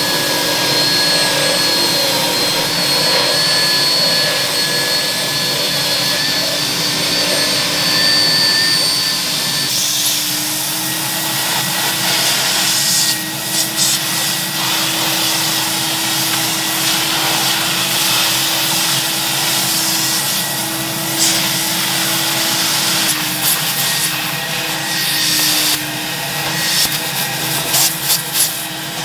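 Upholstery extractor's vacuum motor running steadily. For about the first ten seconds a drill-driven scrub brush whines over it on a seat back, then stops; after that the extraction wand is worked over the seat fabric, the sound flickering briefly several times near the end.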